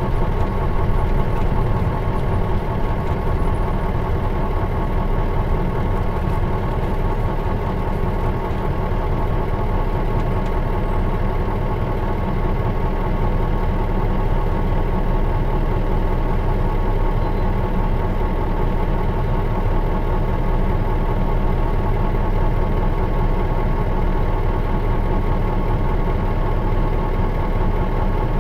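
2002 Mitsubishi Fuso Aero Bus KL-MS86MP's diesel engine idling steadily, at an even, unchanging pitch.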